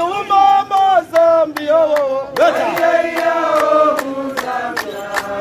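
Men chanting, a voice holding long notes that slide up and down, with sharp knocks sounding throughout. The chant belongs to the Ngoni warriors' traditional ceremonial dance.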